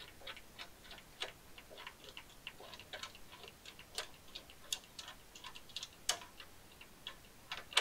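Ratchet wrench clicking in faint, irregular runs of light clicks as a bolt is turned to collapse a threaded insert with a homemade setting tool.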